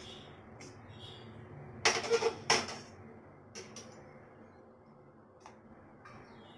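Metal kitchen tongs and a steel wok clattering while noodles are served onto plates: a click at the start, a loud cluster of clinks and scrapes about two seconds in, then a few single lighter clicks.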